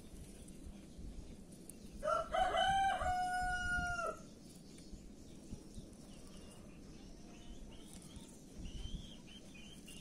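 A rooster crows once about two seconds in, one long call of about two seconds. Faint high chirping follows near the end.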